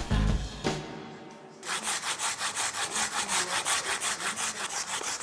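Potatoes being grated by hand on a grater: quick, even rasping strokes, about four or five a second, starting a little under two seconds in as background music fades away.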